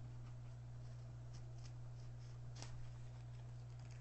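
Faint handling of the taped diamond-painting canvas package: a few light clicks and rustles over a steady low electrical hum.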